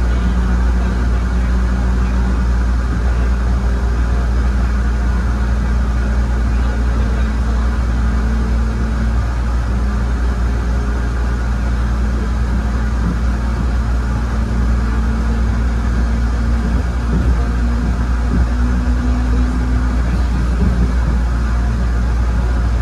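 ABB N5 rail car in motion: a steady, loud running noise with a low rumble and faint motor tones that shift slightly in pitch partway through.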